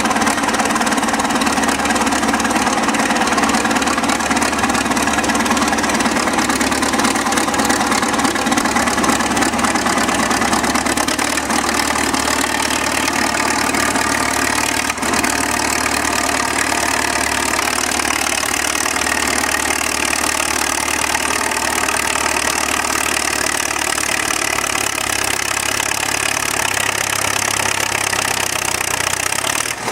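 Soviet T-100 crawler tractor's four-cylinder diesel engine running steadily.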